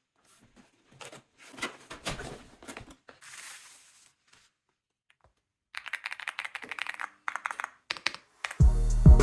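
Scattered handling clicks and rustling, then a quick run of computer keyboard keys being typed on. Music with a heavy drum beat starts near the end.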